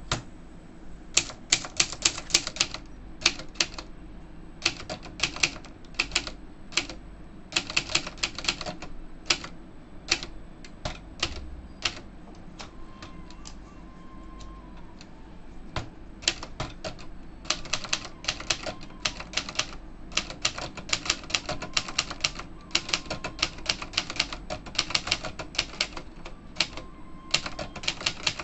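Brother Charger 11 manual portable typewriter being typed on: quick runs of sharp key strikes with short pauses between them, and a sparser, quieter stretch about halfway through.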